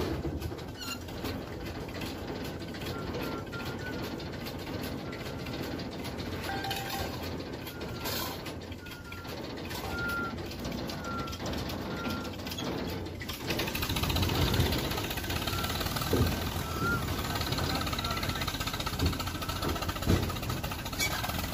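Old farm tractor engine running steadily as the tractor drives over rough farm ground, getting louder about two thirds of the way through.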